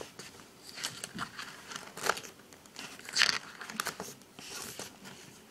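Paper pages of a spiral-bound activity book being turned by hand, rustling in several short bursts.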